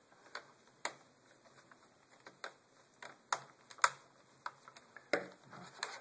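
Plastic bottom access cover of an Acer Aspire laptop being pried and snapped loose by hand: scattered sharp plastic clicks and taps, with a few louder snaps a little past three seconds and again after five seconds.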